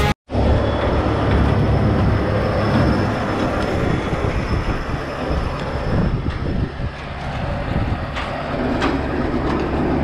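Tractor-driven Vermeer 504R Signature round baler running in the field, a steady mechanical rumble with a few sharp clicks and a faint high whine that fades about six seconds in.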